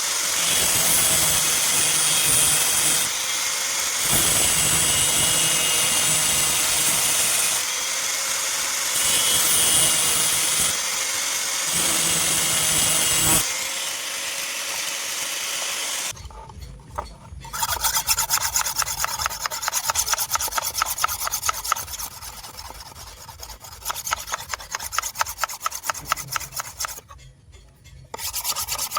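Steel knife blade being worked: for about the first half a steady grinding noise that swells and eases every couple of seconds, then quick back-and-forth strokes of a file on the metal, briefly pausing twice.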